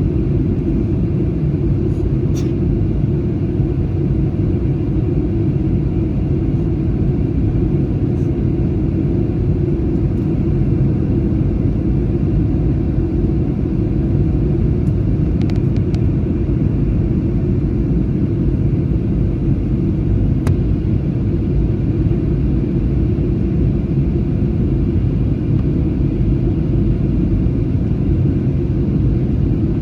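Steady low rumble of jet-airliner cabin noise during descent: engine and airflow noise heard from a passenger seat, with a few faint ticks.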